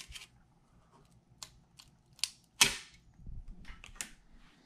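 A 3D print being pried off an Ender printer's bed with a plastic scraper: a few small clicks, then one sharp, loud crack a little over halfway through as the print breaks free of the bed.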